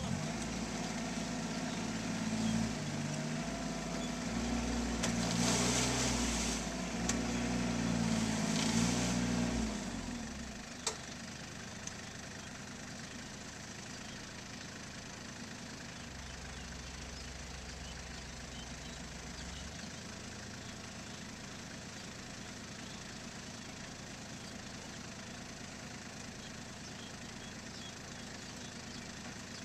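Compact farm tractor engines running in a muddy rice paddy while one tractor is stuck. For about the first ten seconds an engine is loud and its pitch rises and falls as it is revved under load; then it drops to a quieter steady idle. A single sharp click comes about a second after the drop.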